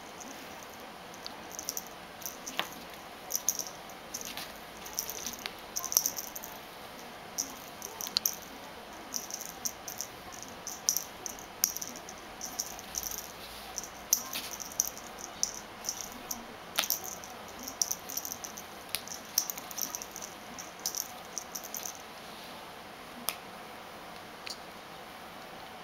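Ragdoll cat playing with a fluffy cat-teaser toy: irregular light clicks, scratches and rustles of paws and toy on the floor mat, thinning out near the end.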